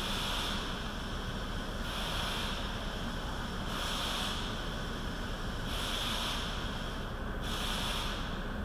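Short hissing sprays in an engine bay being cleaned, five bursts about two seconds apart, over a steady hiss.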